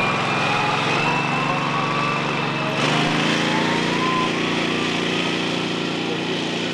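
John Deere Gator four-seat utility vehicle's engine running steadily as it drives across grass, with a faint whine rising slowly in pitch; the engine note shifts about three seconds in.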